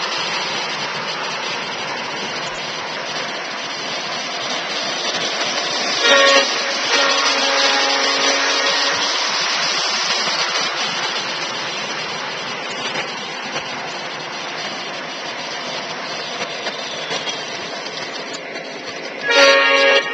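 O-gauge model diesel locomotives running on three-rail track, with a steady running noise. The locomotive sound system blows its horn: a short blast about six seconds in, followed by a fainter held note for a couple of seconds, and a loud blast near the end.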